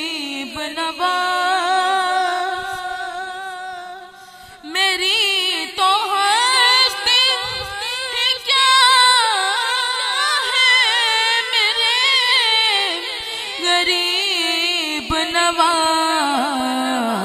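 A boy's solo voice singing a naat, Urdu devotional verse in praise of the Prophet, in long held and ornamented notes with a wavering pitch. It drops away briefly about four seconds in, then comes back louder.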